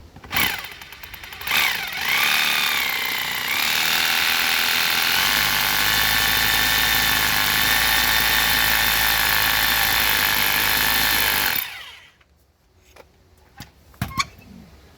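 Hammer drill boring into concrete: two brief squeezes of the trigger, then about ten seconds of continuous hammer drilling that stops suddenly, followed by a few light clicks and knocks.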